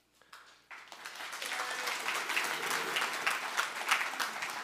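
Congregation applauding, starting about a second in, building and then holding steady.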